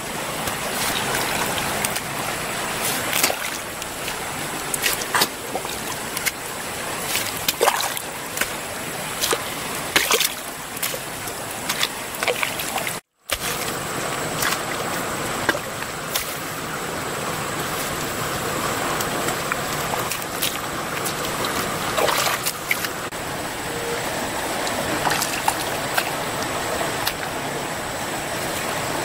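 A small bamboo-handled digging tool striking and scraping waterlogged mud in irregular strokes, with wet splats and sloshing of muddy water, over a steady hiss of running water.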